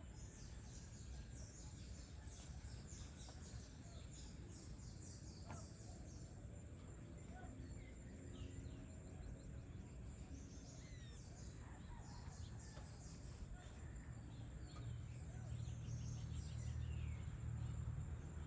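Evening outdoor ambience: small birds chirping in runs of rapid, high, short notes, with a few lower falling calls, over a low steady rumble that grows louder near the end.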